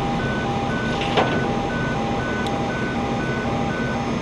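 An electronic alarm beeping in a fast alternating high-low pattern, about two high-low pairs a second, over a steady low hum. A single sharp knock comes about a second in.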